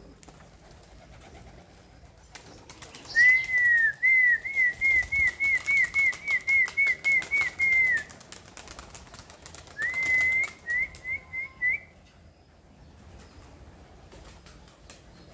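Domestic pigeons' wings flapping and clapping as they take off and fly around the loft. Over this, a high, clear whistled note repeats quickly, about three times a second, in a long run of several seconds and then a shorter one.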